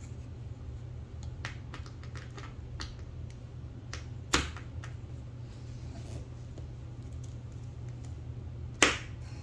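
Irregular small clicks of screws being tightened into a desk frame with a hand tool. Two sharper knocks come about four seconds in and near the end.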